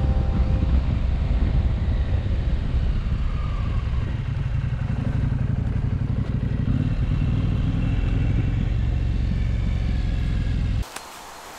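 KTM 790 Adventure R parallel-twin motorcycle under way, its engine under a steady rumble of riding wind. It cuts off suddenly near the end to a much quieter outdoor hiss of wind and rustling.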